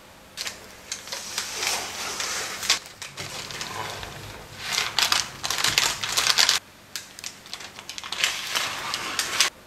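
Large kitchen knife cutting down through a slab of chocolate-ganache-topped caramel shortbread, giving a crackling, crunching scrape with many small clicks as the blade presses through the set chocolate and the crumbly shortbread. The cutting comes in a few long passes.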